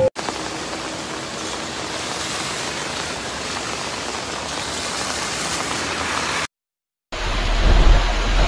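Floodwater rushing in a swollen, muddy river: a steady, even rush of water. It cuts out for a moment about six and a half seconds in and comes back louder, with a deep rumble, as a torrent of brown water surges past.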